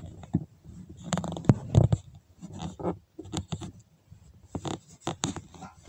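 Handling noise against a clear plastic insect case: irregular clicks, taps and scrapes, with a few heavier knocks about one and a half to two seconds in.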